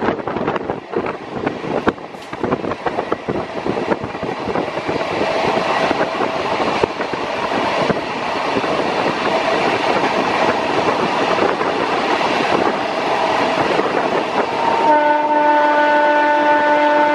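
Close rolling noise of two trains running side by side at speed: the rumble and wheel clatter of Rajdhani Express coaches passing an electric local train. About fifteen seconds in, a loud steady multi-tone train horn starts and holds.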